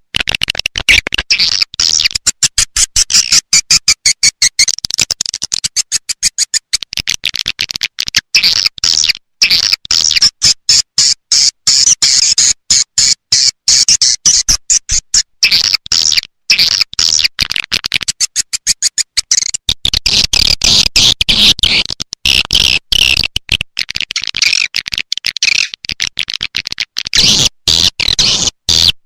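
Recorded swiftlet call, the lure track played to attract swiftlets to a nesting house: dense, rapid, high-pitched chirping and twittering in quick choppy pulses, with brief gaps.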